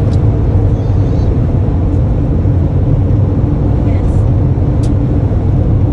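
Steady engine and road noise of a Toyota van cruising, heard inside the cabin as a constant low drone, with a single sharp click about five seconds in.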